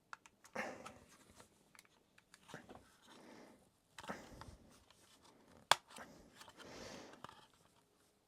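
Faint plastic handling noise from a toy sonic screwdriver's battery compartment being worked: small clicks and rustles, with one sharp click a little before six seconds in.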